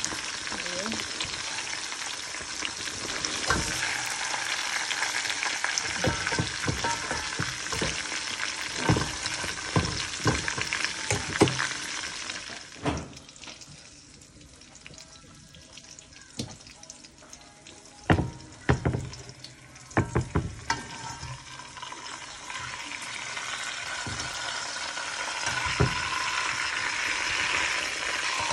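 Beef chuck roast sizzling in hot oil and pan juices in a pot. The frying hiss dies down partway through, then rises again. A few sharp clacks of a metal fork against the pot come about two-thirds of the way in, as the roast is turned.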